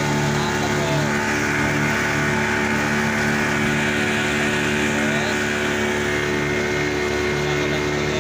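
Small boat's outboard motor running steadily at cruising speed, with the rush of water from the wake.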